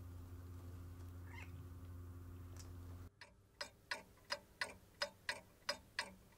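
A steady low hum, then a clock ticking about three times a second, starting about three seconds in.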